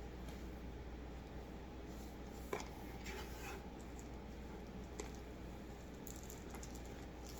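Light handling noises from a cell phone and its packaging: a sharp tap about two and a half seconds in, a brief scratchy rustle just after, and another tap about five seconds in, over a steady low hum.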